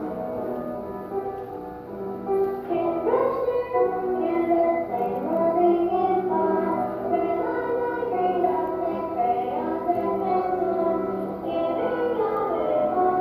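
Music: children's voices singing a song over instrumental accompaniment.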